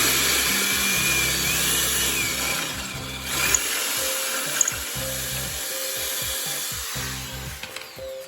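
A power tool running steadily, fading off near the end, with background music.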